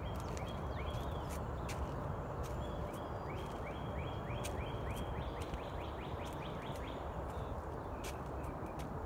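Songbirds chirping, with a quick run of short rising notes at about four a second through the middle, over a steady low outdoor rumble. Scattered sharp clicks sound throughout.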